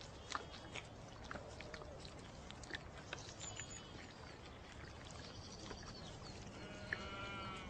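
A young goat bleats once near the end, over a faint run of small scattered clicks.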